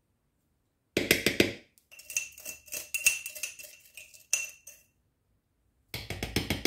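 A metal spoon tapping and scraping against the rim of a plastic mini chopper bowl, knocking frozen chopped parsley into a chickpea mixture. A burst of clinks comes about a second in, then a run of lighter taps and scrapes, then another cluster of knocks near the end.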